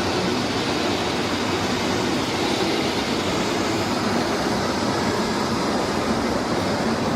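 Heavy-duty metal lathe cutting steel: a steady, loud mechanical rumble with the rattling grind of the cut.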